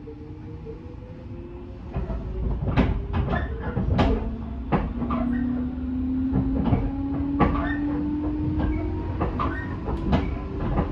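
JR 205-3100 series electric train running, heard from inside the passenger car: the traction motor and gear whine rises steadily in pitch as the train gathers speed, and the wheels clack over rail joints. The noise gets louder about two seconds in.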